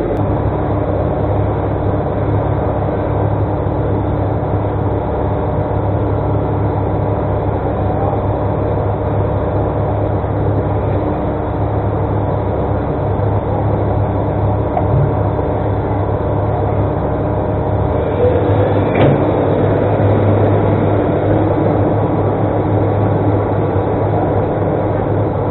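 Excavator engine running steadily, a steady mechanical hum with one brief knock about 19 seconds in.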